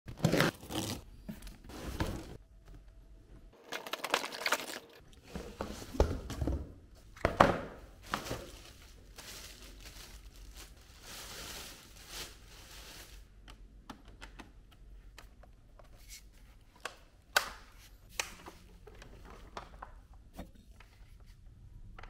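Plastic wrapping being torn open and crinkled in irregular bursts as a vacuum cleaner is unpacked, giving way in the second half to scattered sharp clicks and light knocks of parts and packaging being handled.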